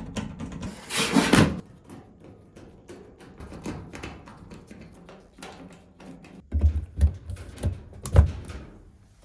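A Whirlpool electric dryer's sheet-metal panels being handled and fitted back together: a rough sliding sound about a second in, scattered light knocks, then several heavy thumps near the end.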